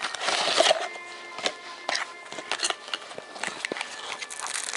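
Packaging of a boxed wireless phone charger being handled and opened: rustling with scattered sharp clicks, loudest in the first second.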